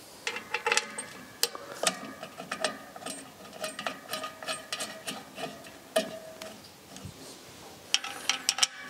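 Irregular light metallic clicks and taps with short ringing notes: small bolts and a screwdriver knocking against a clutch pressure plate and flywheel as the plate is bolted up by hand.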